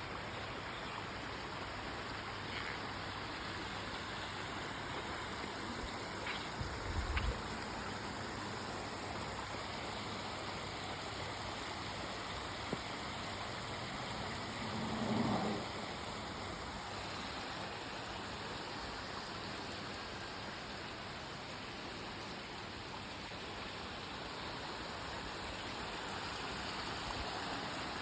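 Steady rush of heavy rain and running rainwater, an even hiss throughout. A few low thumps come about seven seconds in, and a brief louder swell about halfway.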